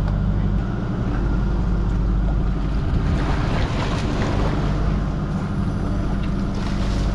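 Steady low drone of the fishing boat's machinery, with splashing at the water surface about three seconds in as a hooked fish thrashes beside the hull and is gaffed.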